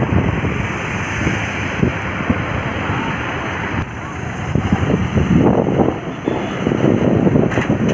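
Wind buffeting the microphone over the steady running of a heavy diesel engine, with gusty rumbling that grows busier about halfway through.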